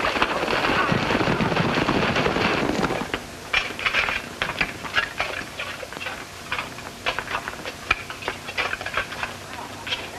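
A dense, steady rushing noise for about three seconds, then scattered gunshots, many irregular cracks from a film gunfight.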